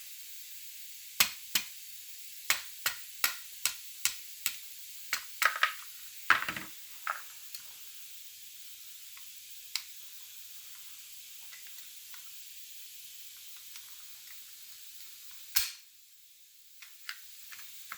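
Parts of a Beretta A300 Outlander semi-auto shotgun being handled during reassembly: a run of about a dozen sharp clicks and knocks over the first several seconds, then one more loud click near the end, over a steady hiss.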